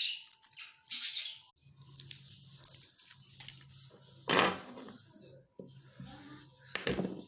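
Small hard objects clinking and rattling in quick irregular clicks, with two louder noisy bursts about four and seven seconds in, over a faint steady hum.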